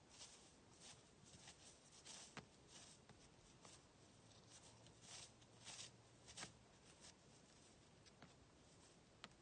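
Near silence with faint, irregular soft rustles and a few small clicks: a whitetail buck cropping grass close by.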